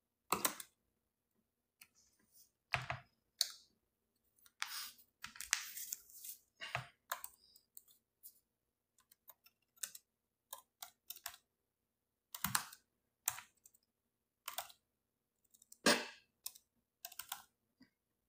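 Typing on a laptop keyboard: irregular key taps and clicks, with a few heavier strokes.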